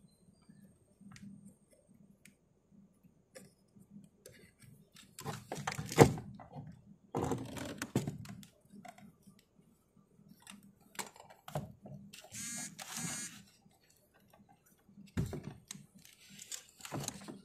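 Hand-work inside an open car door: scattered clicks, knocks and rattles of plastic and metal parts being handled, with louder clusters about five, seven, twelve and fifteen seconds in.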